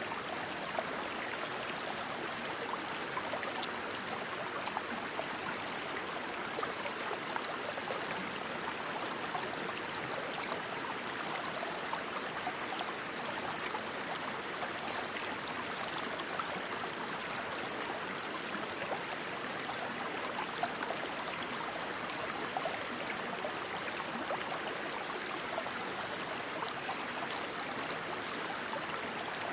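Rushing stream water, a steady even splashing flow. Short high chirps sound over it at irregular intervals, with a brief trill about halfway through.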